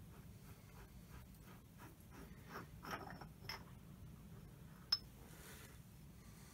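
Faint metallic clicks and scraping as a lathe apron's feed handle is worked back and forth by hand, with a few quick clicks near the middle and one sharper click about five seconds in.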